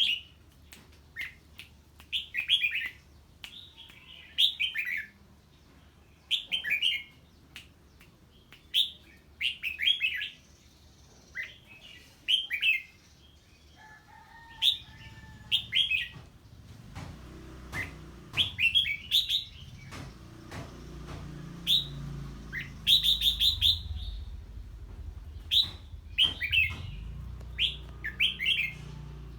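Red-whiskered bulbul singing in quick, excited bursts of short chattering phrases, one every second or two, as it reacts to the call of an unfamiliar bird. A low rumble sets in about halfway through.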